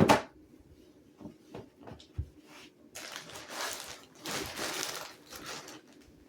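A sharp knock, a few light taps, then a few seconds of rustling and crinkling as upholstery padding material is handled.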